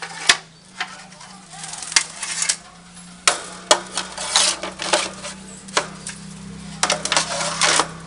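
Droppings tray being fitted into the base of a round wire bird cage: a run of sharp clicks, knocks and short rattles of the tray against the cage's bars and rim.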